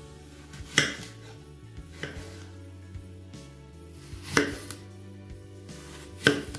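Chef's knife slicing through apples and knocking on a bamboo cutting board: three sharp knocks a couple of seconds apart, with a few lighter taps between, over quiet background music.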